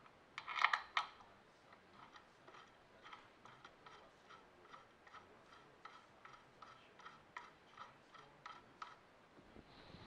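A metal clink about half a second in, then light, even ticking a little more than twice a second as a longer clutch release bolt is turned by hand into the clutch of a BMW R90S airhead engine.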